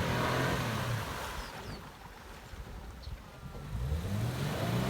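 Toyota Fortuner's 4.0-litre V6 engine revving while stuck in deep water with its exhaust submerged. The revs fall away about a second in, it goes quieter, and the revs climb again near the end.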